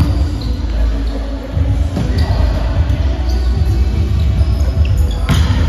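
Indoor volleyball rally: sneakers squeaking on the court, with a sharp hit of the ball about five seconds in, over a steady low rumble in a large gym hall.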